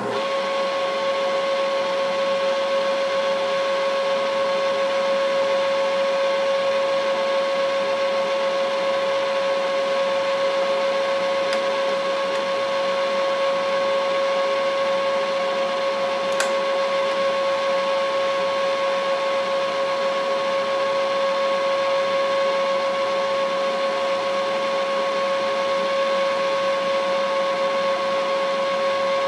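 Milling machine running with a steady whine, switched on abruptly at the start, while its end mill takes a light skim cut across the tops of steel vise jaws.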